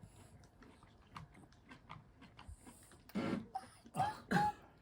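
Faint small taps and clicks of tableware, then two short vocal sounds from a toddler in the last second and a half, the second with a high, bending pitch.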